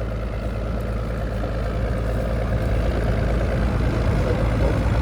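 Diesel engine of a 924 tractor running steadily as it pulls a five-furrow Amazone plough, slowly growing louder as it approaches; a smooth, even purr.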